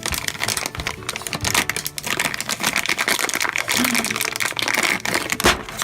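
Plastic blind-bag wrapper being torn open and crinkled by hand: a dense run of irregular crackles and rustles.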